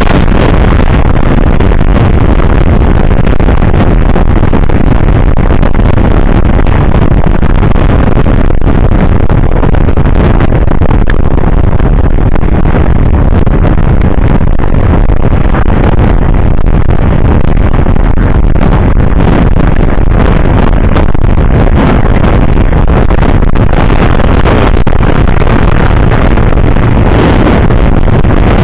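Loud, steady wind rush on the microphone mixed with the engine and road noise of a motor scooter riding at highway speed.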